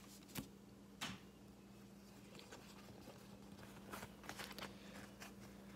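Pokémon trading cards being handled and flipped through in the hands: faint, scattered light clicks and slides of card on card, clearest about half a second and a second in, and again around four to five seconds.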